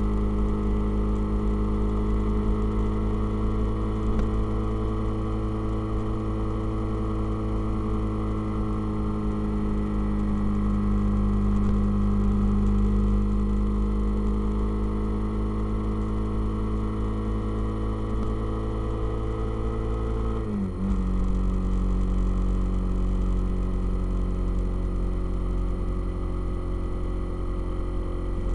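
Motorcycle engine running steadily at road speed, with wind rumble on the microphone. The engine note sinks slowly, dips sharply and briefly about twenty seconds in, then settles a little lower.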